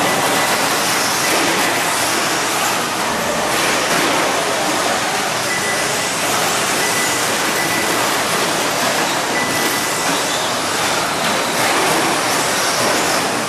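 Electric radio-controlled short-course trucks racing on an indoor dirt track: a steady wash of motor and tyre noise, with a faint high motor whine that comes and goes.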